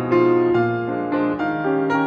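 Background piano music, a melody of single notes over held lower notes, changing every quarter to half second.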